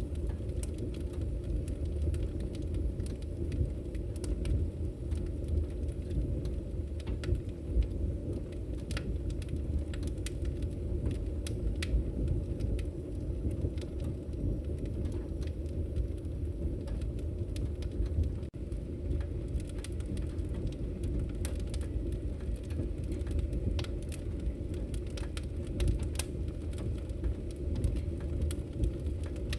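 Campfire burning: a steady low rumble of flames with frequent irregular crackles and pops from the burning wood.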